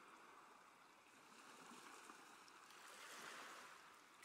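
Near silence: a faint steady hiss that swells slightly about three seconds in.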